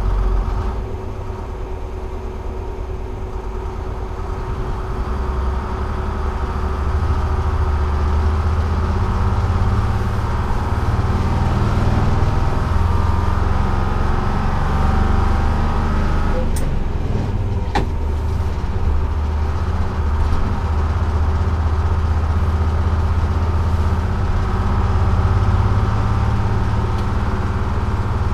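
1948 GMC Silversides bus's Detroit Diesel 6-71 two-stroke engine running under way, heard from the driver's seat as a steady low drone that gets louder about six seconds in. Two short sharp clicks come about two-thirds of the way through.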